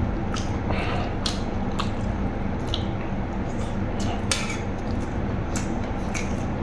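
Close-miked eating: wet chewing and mouth clicks at an irregular pace, with a spoon now and then touching a metal plate, over a steady low hum.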